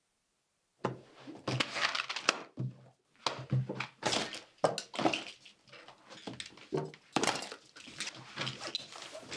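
Rummaging through a cloth tote bag on a table: rustling fabric and things inside knocking together in irregular bursts, starting about a second in.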